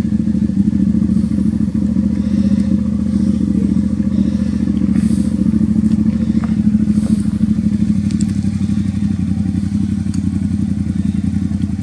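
Motorcycle engine idling steadily with an even, rapid pulse, with a few faint clatters over it.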